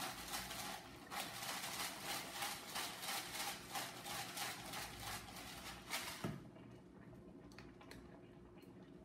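Hand-turned pepper mill grinding peppercorns, a fast, even crackle of about four or five turns a second, stopping after about six seconds with a single knock, then a few faint handling clicks.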